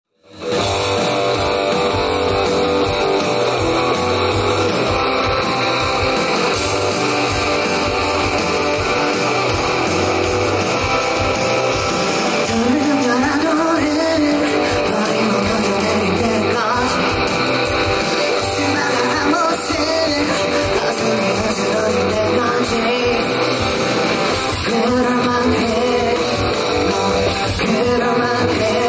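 Live rock song played by a band led by electric guitar, starting abruptly about half a second in; a singing voice comes in over it about twelve seconds in.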